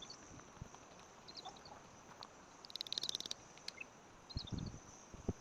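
Faint outdoor ambience of small animal calls: short high chirps repeating, with a rapid high trill about halfway, over a steady faint high hiss. Low rumbling thumps come in near the end.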